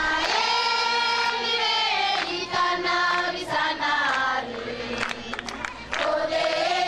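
A choir of voices singing together, opening with long held notes and then moving into shorter, changing notes.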